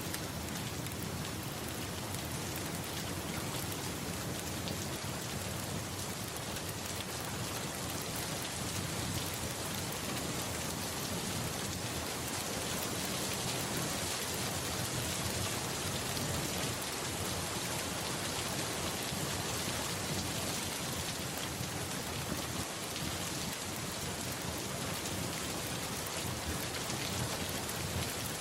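Steady rain falling and pattering on surfaces, an even hiss with no break.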